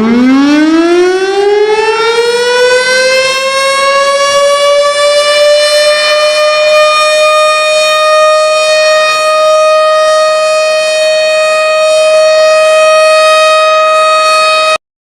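Civil defense siren winding up from a low pitch to a steady high tone, which it holds for about eight seconds before cutting off abruptly near the end.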